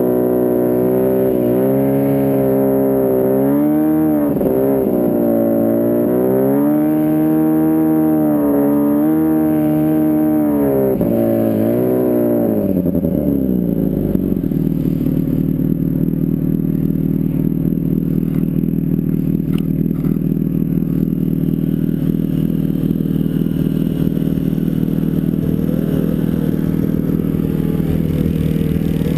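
Snowmobile engine revving up and down under varying throttle for about twelve seconds, then dropping in pitch and running at a steady, lower note.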